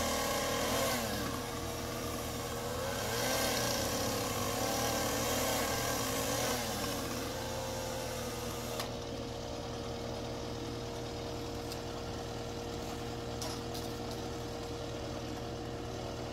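Caterpillar compact track loader's diesel engine running, its pitch rising and falling over the first seven seconds or so, then holding steady.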